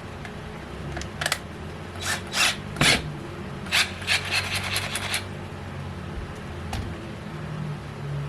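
Short scraping, rasping strokes of a small thread tap cutting a 2 mm screw thread into a drilled hole in a Hot Wheels die-cast toy car. The strokes come in a cluster from about one second in to about five seconds, over a faint steady hum.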